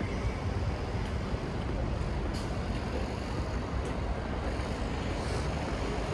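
Steady city street traffic rumble from passing vehicles, with a few faint ticks and a brief hiss a little after five seconds in.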